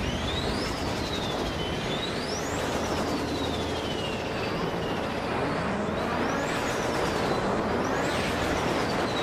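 Motorcycle, the Suzuki Raider J115 Fi, being ridden at highway speed: steady wind and engine noise, with a high whine that rises quickly and falls away slowly about four times as the throttle is worked.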